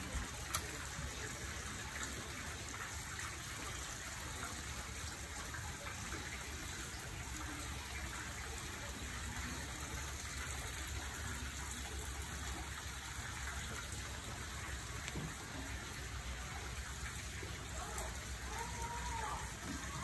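Steady rushing of running water from a small stream channel running through the room, with a few faint clicks over it.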